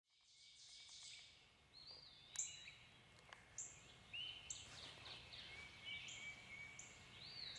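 Faint songbird chorus in woodland: several birds singing at once, overlapping short whistled notes and chirps, some sliding down in pitch, over a low steady hiss. It fades in from silence at the start.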